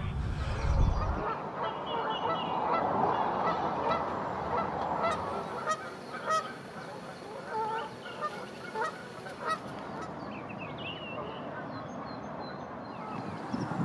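A flock of geese honking on the water, many calls overlapping, thinning out to a few after about ten seconds.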